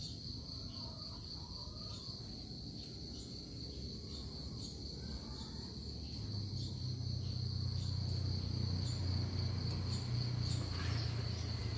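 A steady, high-pitched insect drone, one continuous tone that does not let up. About halfway through, a low hum comes in underneath it and grows a little louder.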